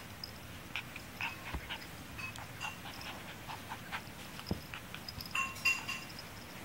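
Eight-week-old miniature schnauzer puppy giving a quick string of short, high-pitched yips and squeals while play-wrestling, loudest near the end, with a couple of soft thumps.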